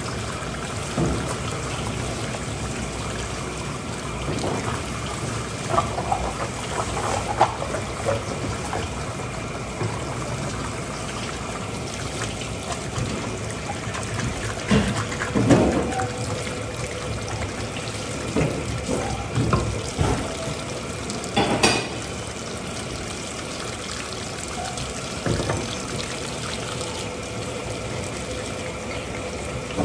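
Water running steadily from a tap or hose, with scattered knocks and clatters, the sharpest about two-thirds of the way in.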